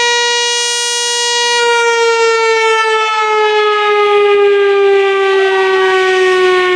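Whelen WPS-4004 electronic outdoor warning siren sounding its analog tone as its horn array rotates. The single loud, high tone holds steady, then begins sliding slowly lower about a second and a half in.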